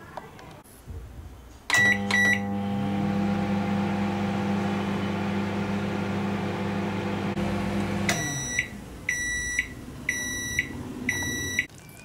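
Microwave oven: two short keypad beeps as it is started, then the oven running with a steady hum. About eight seconds in, the hum stops and the oven beeps several times to signal the end of cooking.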